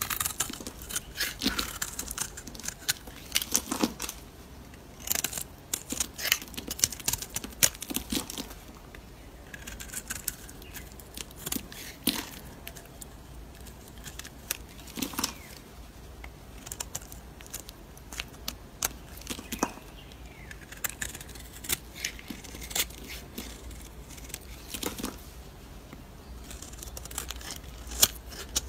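Snap-off utility knife blade shaving and cutting a bar of soap held in the hand: runs of crisp scraping and crackling strokes as curls and chunks break away, with short pauses between runs.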